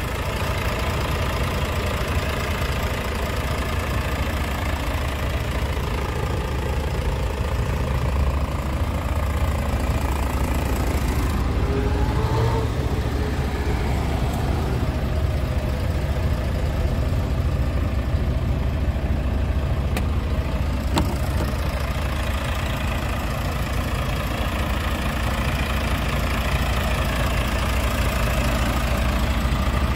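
Scania R tractor unit's diesel engine idling steadily, a constant low hum.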